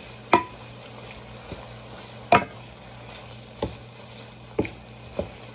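Chunks of beef and chicken frying in a large pan with a steady sizzle, stirred with a wooden spatula that knocks sharply against the pan about five times, loudest about two seconds in.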